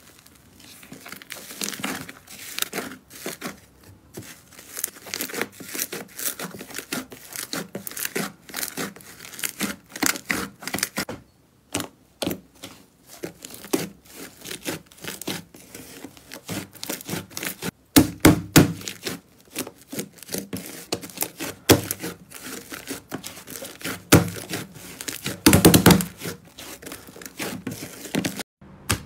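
Hands pressing, stretching and kneading bubbly foam slime, making a dense run of crackling and popping as trapped air bubbles burst. A few louder pops come a little past halfway and again near the end.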